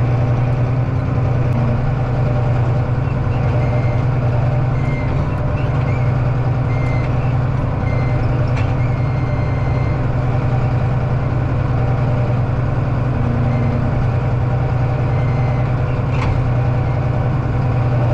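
Engine of a heavy machine levelling out a muddy, rutted farmyard, running steadily under load, with short high tones now and then.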